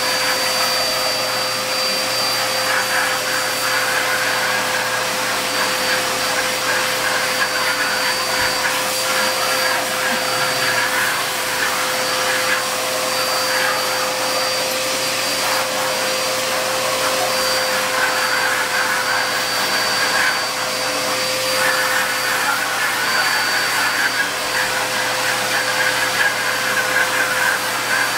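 Vacuum cleaner running steadily while its hose nozzle is drawn through a dog's fur. The motor holds one steady pitch, and the air rush wavers slightly as the nozzle moves over the coat.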